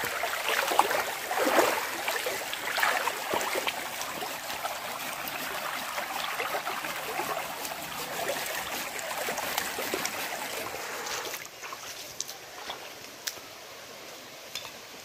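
Stream water running steadily, with scattered small knocks and rustles over it; the sound drops quieter about eleven seconds in.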